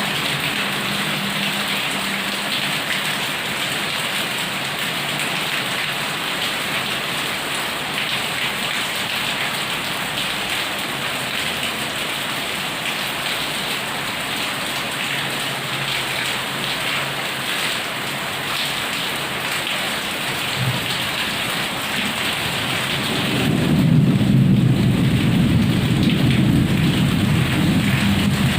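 Heavy rain pouring steadily. Near the end a long, low rumble of thunder rolls in and goes on.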